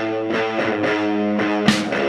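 Background music: electric guitar-led instrumental with a steady beat.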